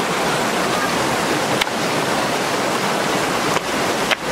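Shallow rocky creek rushing over stones in small riffles: a steady, loud water noise, with two brief clicks, about a second and a half in and near the end.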